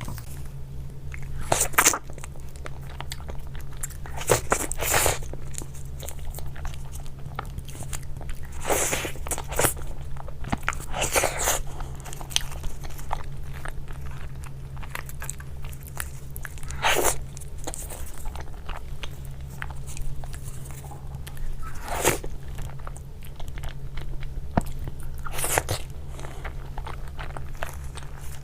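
Someone biting and chewing crunchy food close to the microphone, with a crisp bite every few seconds over a steady low hum.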